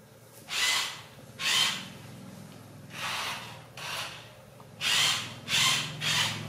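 Small electric motor of a toy remote-control car whirring in about seven short bursts, each roughly half a second long, as the car is driven forward in spurts.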